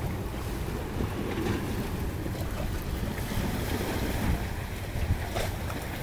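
Wind buffeting the microphone with a steady low rumble, over small waves washing onto a pebbly shore.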